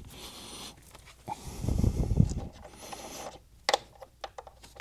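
Heavy breathing close to the microphone: two long breaths. From a little past halfway there is a run of small sharp clicks and taps from handling speaker jumpers and binding posts.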